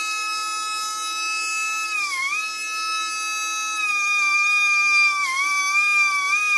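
Dremel rotary tool with a fine-grit rubber sanding drum running at a steady high whine, its pitch sagging briefly twice under load as it sands the chainsaw cylinder's port.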